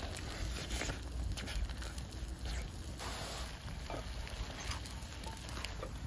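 Wood campfire crackling with scattered small pops, and a pan of egg sizzling over the flames.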